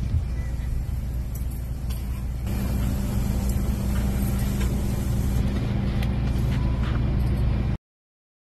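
A vehicle running with a steady low rumble that grows louder about two and a half seconds in, then cuts off abruptly near the end.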